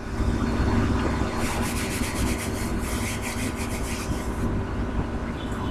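Chalk being wiped off a small chalkboard by hand: a run of quick back-and-forth rubbing strokes, about five a second, lasting about three seconds. A steady low rumble runs underneath.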